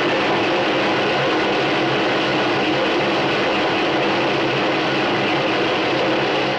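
A loud, unbroken metallic clattering racket from a metal garbage can being banged to wake the recruits. The din stays at the same level throughout.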